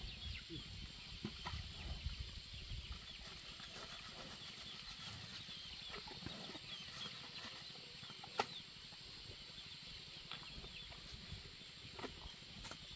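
Faint bird chirping throughout, with scattered knocks from cattle feeding at a wooden trough; the sharpest knock comes a little past eight seconds in.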